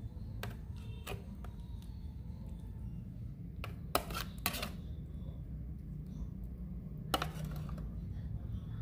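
A metal spoon knocking and scraping against a metal tray and a bowl while scooping kimchi: a handful of separate sharp clinks, the loudest about four seconds in and near the end, over a low steady hum.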